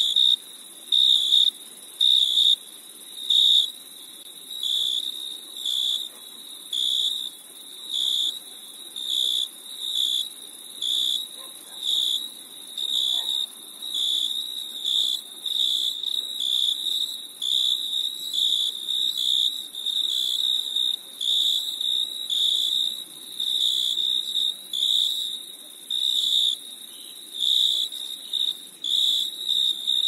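Cricket chirping: short, high, pure-toned chirps repeating evenly a little more than once a second, over a faint steady high hiss.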